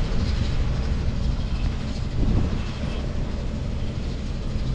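Steady low engine rumble of a machine running at a constant speed.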